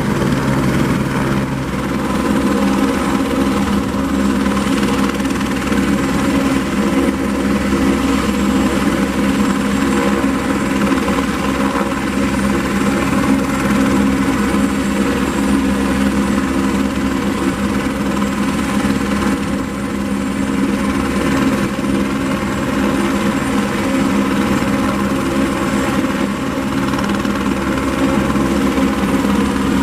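Eurocopter AS350 B3 helicopter running at a steady pitch: its single turboshaft engine and main rotor make a loud, even hum that neither rises nor falls.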